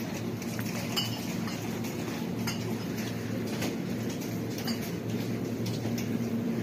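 Supermarket aisle ambience: a steady low hum under a few scattered, sharp metallic clinks and rattles.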